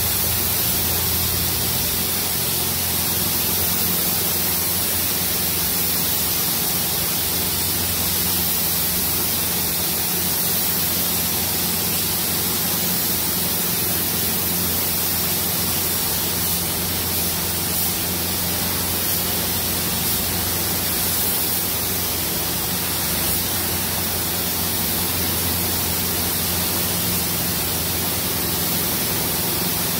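Gravity-feed compressed-air paint spray gun hissing steadily as paint is sprayed onto a car's bonnet, over a steady low hum.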